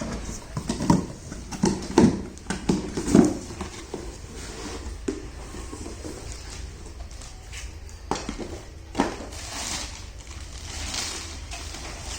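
Steel cookware being handled: a quick run of knocks and clinks over the first few seconds, then two more single knocks about eight and nine seconds in.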